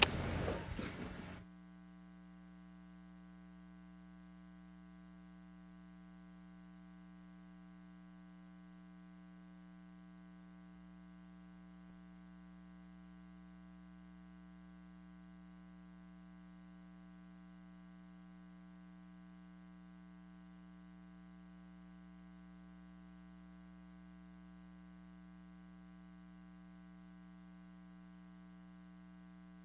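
Steady electrical mains hum with a stack of evenly spaced overtones, like ground-loop hum on an audio line. It is left alone after a louder, noisy sound cuts off abruptly about a second and a half in.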